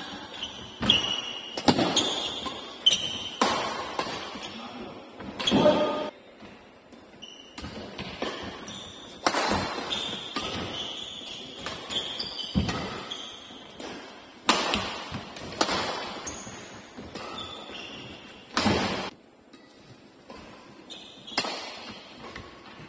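Badminton doubles rally: sharp racket-on-shuttlecock hits at irregular intervals of one to two seconds, echoing in the hall, with short high squeaks of court shoes between them and a lull about three quarters of the way in.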